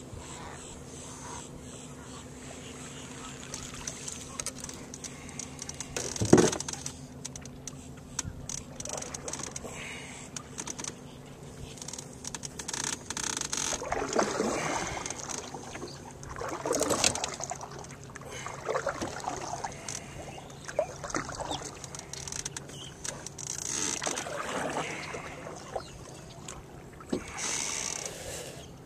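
Water splashing and trickling around a small fishing boat, with scattered knocks and one louder thump about six seconds in.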